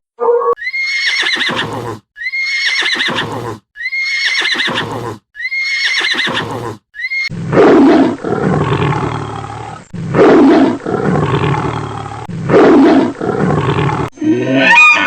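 A horse neighing: the same high, falling whinny repeated four times, followed by three longer, rougher, lower animal calls.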